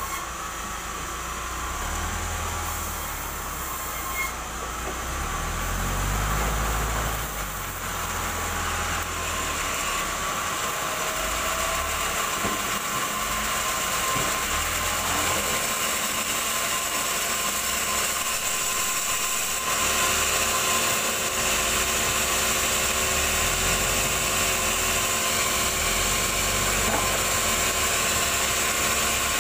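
Sawmill band saw running and cutting through a log of tough, hard timber: a steady mechanical drone with the blade whining in the wood, which gets louder about twenty seconds in.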